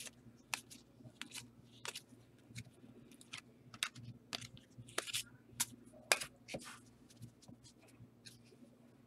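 Faint, irregular clicks and rustles of trading cards being handled and sorted.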